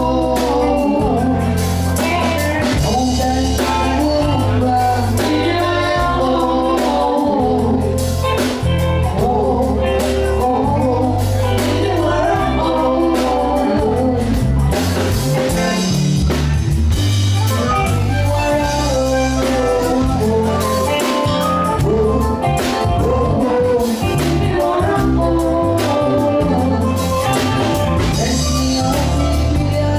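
A band playing with a singer, over a steady bass line and drums.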